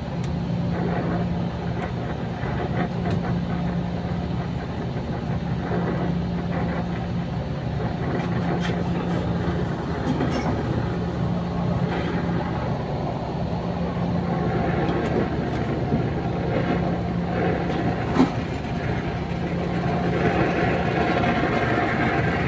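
Oxy-acetylene brazing torch burning steadily as the compressor's copper pipe joints are heated to unbraze them, over a steady low machine hum, with a few faint clicks.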